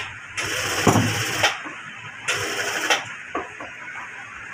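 Industrial sewing machine running in two short bursts of about a second each, starting and stopping abruptly, with a few clicks between.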